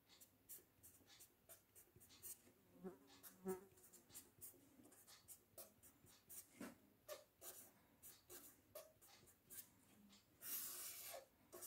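Faint scratching and tapping of writing on paper: short, separate strokes scattered throughout, with one longer scratch near the end.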